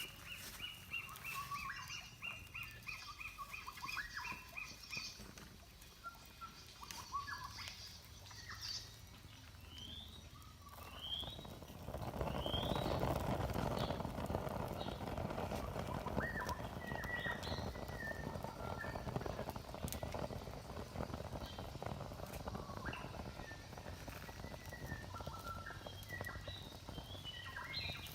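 Small wild birds chirping and calling over and over, with short rising calls. About twelve seconds in, a steady rough noise from nearby work starts up and keeps going under the bird calls.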